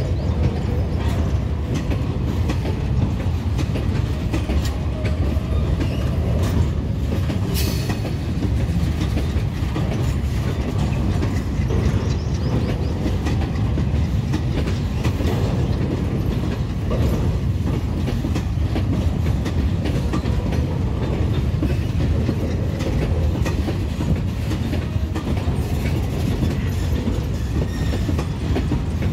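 Empty freight wagons of an Indian Railways goods train rolling past, their wheels clattering steadily over the rail joints with a continuous low rumble. There is a brief high screech about eight seconds in.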